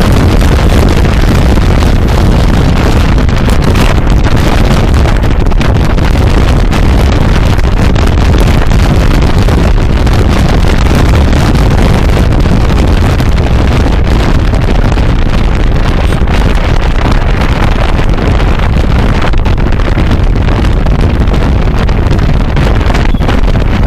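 Loud, steady wind buffeting the microphone over the running noise of a moving vehicle.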